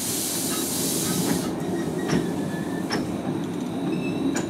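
A miniature steam locomotive hisses steam until about a second and a half in, when the hiss cuts off. Under it is a steady low rumble as the loaded turntable is turned, with a few sharp clicks and faint squeals from the wheels and rails.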